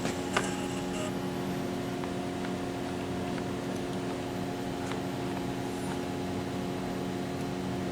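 Steady machinery hum holding several constant tones, with two light clicks in the first second.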